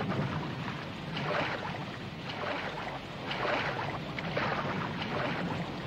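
Heavy rain and river water, with a swell of splashing about once a second as horses wade through a swollen river ford.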